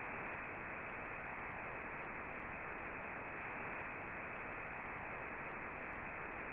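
Steady static hiss of an interrupted television broadcast. It is an even, unbroken noise with no high treble.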